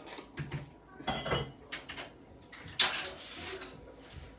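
Kitchen dishes and utensils clattering: a few short knocks and clinks, the sharpest about three seconds in.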